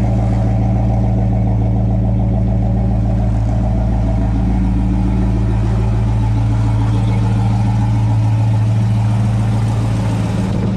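1965 Ford Fairlane's 289 V8 idling steadily through its Magnaflow exhaust, warming up just after a cold start.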